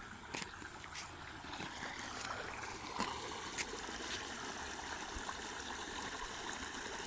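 Steady outdoor ambience: an even rushing noise with a few faint clicks and a thin, steady high-pitched tone.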